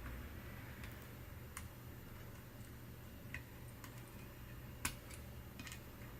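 Scattered small, sharp clicks and taps of hands and tools working on laptop parts during disassembly, about half a dozen, with the loudest a little before five seconds in, over a low steady hum.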